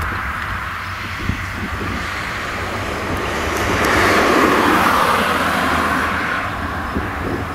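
Fendt tractor running steadily while pulling a twin-rotor hay rake, the rotors sweeping through windrowed hay. It swells to its loudest about halfway through as the machine comes nearest, then eases off.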